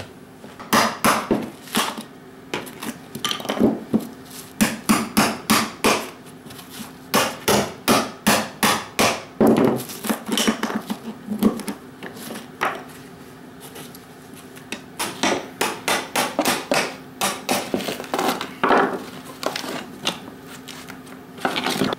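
Hammer striking a chisel driven under parquet wood floor tiles to break them up and pry them loose: runs of sharp blows, about three a second, with a pause partway through.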